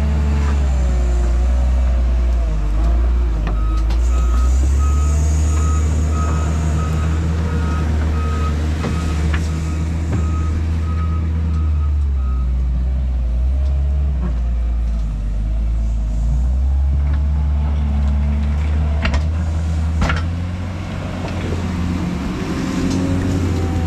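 Diesel engine of heavy earthmoving machinery running under varying load, with a reversing alarm beeping about twice a second from a few seconds in until about halfway. Two sharp clanks come near the end.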